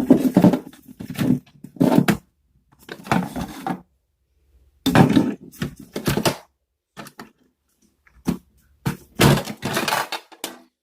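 Hard plastic power-bank casing being handled, with irregular bursts of clattering and scraping as the opened shell and its parts are moved.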